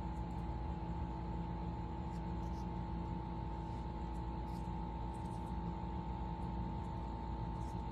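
Steady background hum with several fixed pitches under a faint noise hiss, with a few faint, brief ticks scattered through it.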